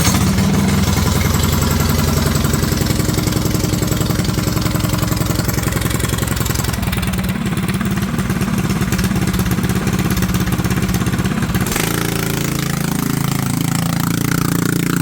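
Go-kart's small engine running hard under throttle, worked from the lever with nobody seated on the kart, which runs away on its own. Its note shifts about twelve seconds in.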